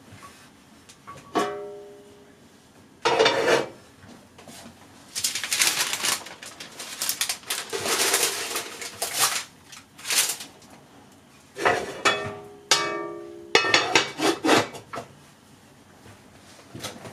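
An enameled cast-iron Dutch oven and its heavy lid are handled. A ringing clank comes as the lid comes off, then several seconds of parchment paper rustling as the loaf is lowered into the pot. Several clanks and knocks follow as the lid goes back on, some of them ringing.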